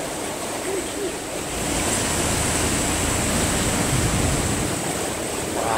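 Sea waves washing and surging against rock inside a sea cave: a steady rushing wash that swells about one and a half seconds in.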